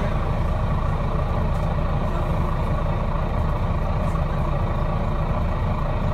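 Steady low rumble of a Wright Eclipse Gemini 2 double-decker bus (Volvo B9TL chassis) on the move, its engine and road noise heard from inside on the upper deck.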